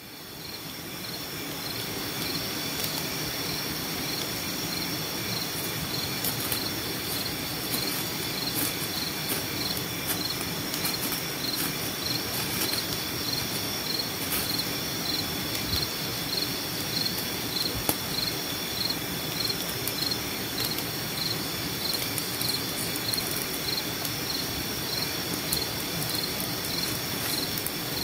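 Night chorus of crickets and other insects: steady high trilling with a pulsing chirp repeating about twice a second. Faint sharp ticks are scattered through it.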